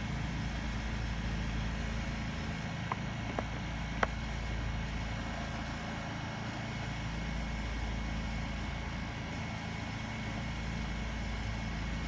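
Outdoor air-conditioner or heat-pump unit running with a steady low mechanical hum. A few light clicks come about three and four seconds in.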